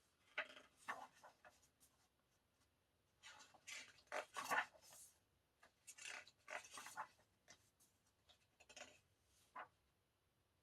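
Paper and card of a music album being handled: faint, irregular rustling and scraping in short bursts, busiest around the middle.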